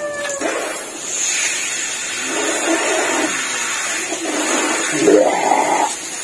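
Water from a homemade overhead shower spraying down onto a man and the ground as a steady hiss, with louder splashing about three seconds in and again about five seconds in.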